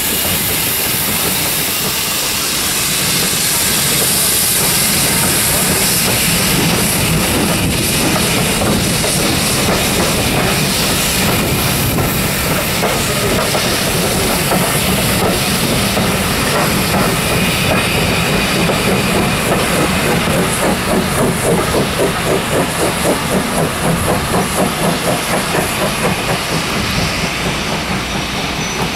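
Steam locomotive and train close by: a loud, steady hiss of steam, then from about two-thirds in a quick, even rhythmic beat of a few a second as the train runs.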